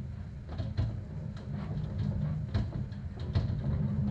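Hurricane-force wind rumbling against the house, with scattered knocks and bangs from the structure.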